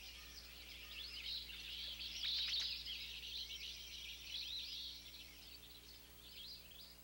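A flock of small songbirds chirping and twittering together in many short, quick calls, busiest and loudest about two and a half seconds in and thinning out toward the end, over a faint steady low hum.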